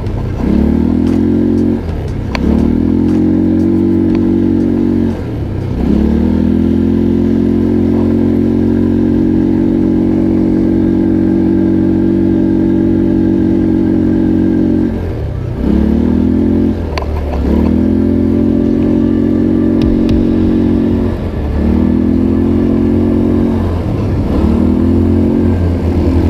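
ATV engine running under throttle on a dirt trail, its pitch dropping briefly several times as the throttle is eased and rising again as it is opened, with a few knocks and clatters from the ride.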